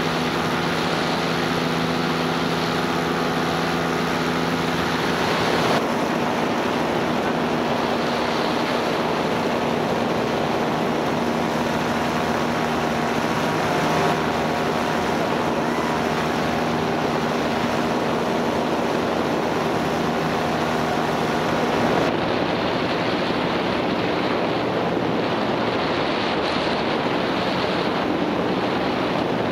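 A paramotor trike's Polini 190 single-cylinder two-stroke engine running steadily in flight, with wind rushing over the microphone. Its note changes about six seconds in and again about twenty-two seconds in.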